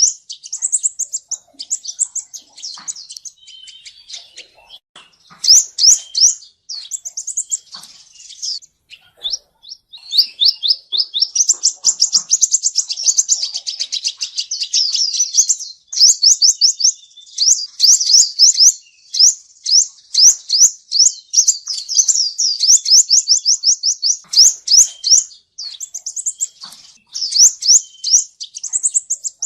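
Male sunbird singing: high, thin, rapid trills of quick down-sweeping notes, first in short phrases, then in a long, nearly unbroken run through the middle.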